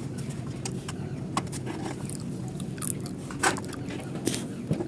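Light clicks and scrapes of the grill machine's parts being handled and fitted back into place during reassembly, over a steady low hum; the sharpest clicks come about three and a half and four and a quarter seconds in.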